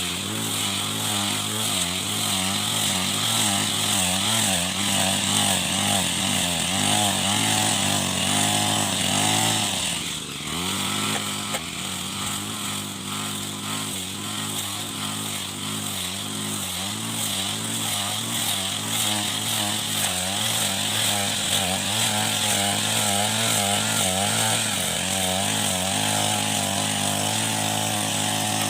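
Small petrol grass cutter's engine running steadily under load, its speed wavering as it cuts. About ten seconds in the engine note drops sharply, then builds back up.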